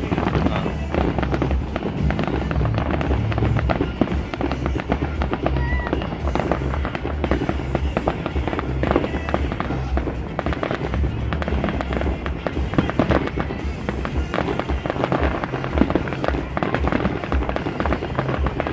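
Aerial fireworks shells bursting in a dense, continuous barrage: a steady stream of booms and crackles with no pauses.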